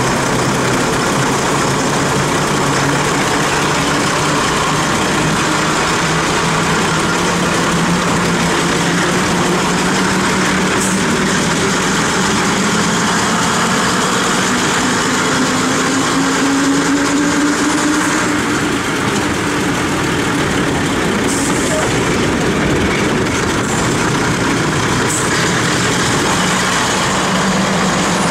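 Diesel multiple unit's engine pulling the train along slowly, its note climbing steadily for about ten seconds, dropping back, then climbing again near the end, under a steady rush of wind and train noise heard from an open carriage window.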